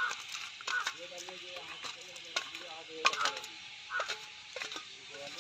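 Washed red lentils being poured from a steel bowl into water in an iron kadai, with scattered clinks and taps of the bowl against the pan, the sharpest about three seconds in.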